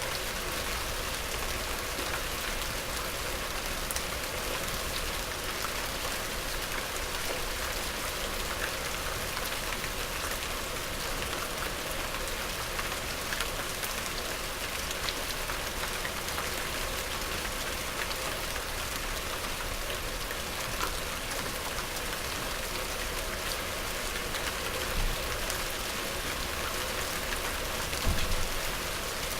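Medium rain falling steadily: an even hiss with scattered ticks of single drops hitting a surface. Two brief low bumps come near the end.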